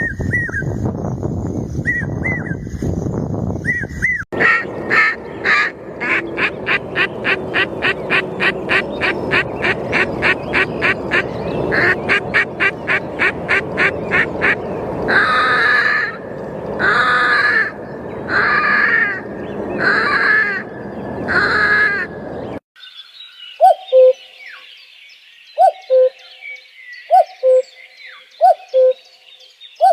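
Ducks quacking: a fast run of calls, about four a second, then five loud drawn-out quacks. Past two-thirds of the way through it cuts to a common cuckoo singing its two-note falling "cuck-oo", repeated about every second and a half.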